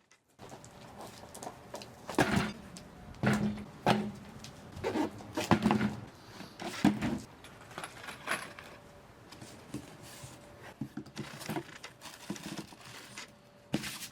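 New brake parts being unboxed: cardboard boxes and packaging handled, with irregular knocks, scrapes and rustles.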